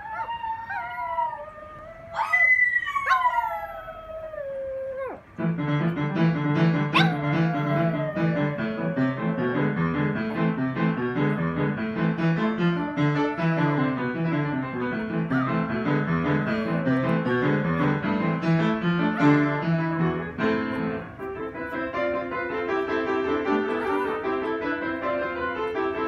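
A chihuahua howls in a few high, wavering, falling tones; about five seconds in the howling gives way to piano music that plays on for the rest.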